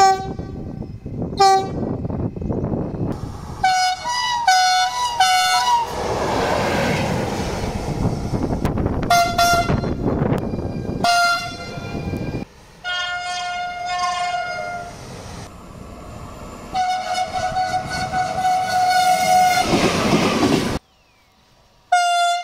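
Italian electric trains sounding two-tone horns while running through a station. A quick run of short high-low toots comes about four seconds in, followed by longer held blasts, with the rumble and clatter of a passing train between them.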